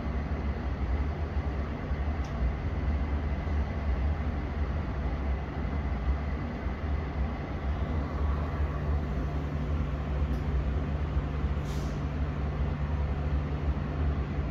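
London Underground Metropolitan line S stock train giving off a steady low electrical hum, with a short hiss of air about twelve seconds in.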